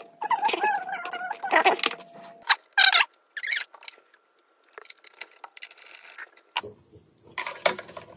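Hard plastic clicking and rattling as the battery cover of a Hasbro Black Series Boba Fett helmet's rangefinder is removed and batteries are fitted. Irregular sharp clicks with a brief quiet gap about halfway through.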